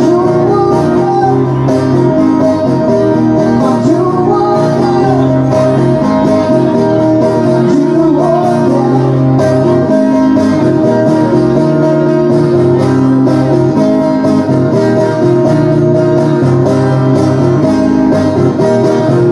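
Live steel-string acoustic guitar strummed and picked through a PA, with a man singing over it.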